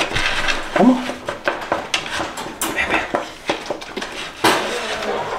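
Metal wire dog crate rattling and clinking as its door and latch are handled, a run of irregular sharp clicks with a louder clank about four and a half seconds in.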